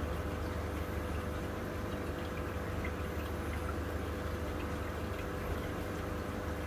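Steady aquarium running noise: water trickling and bubbling over a constant low hum.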